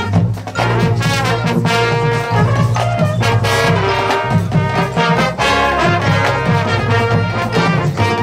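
High school marching band playing live outdoors: brass sections sounding loud sustained chords and melody over steady drum strokes.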